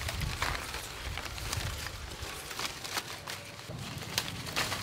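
Mango tree leaves and branches rustling, with several short sharp cracks, as green mangoes are pulled from their stems by hand.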